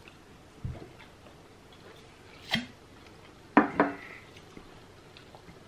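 Glass beer bottle set down on a wooden table: two sharp knocks with a short ring about three and a half seconds in, the loudest sounds here. Before them come a soft low thump and a brief sharp click.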